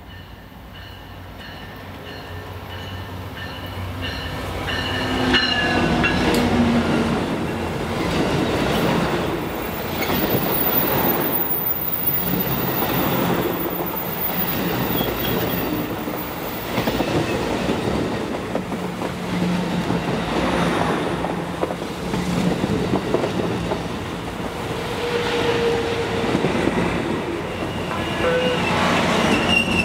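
Amtrak Surfliner passenger train approaching and passing. It grows steadily louder over the first six seconds, then runs on as a continuous rumble with the repeated clatter of wheels on the rails.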